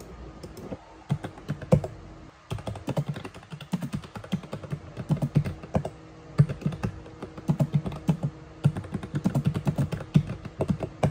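Typing on a computer keyboard: a quick, irregular run of key clicks with a few short pauses.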